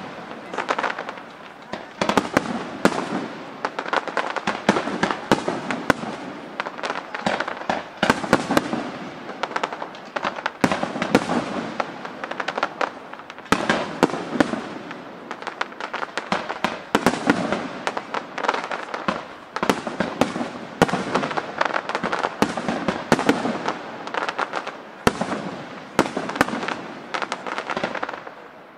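Aerial firework shells bursting in rapid, overlapping volleys, with dense crackling between the bangs, coming in waves every second or two and dying down at the very end.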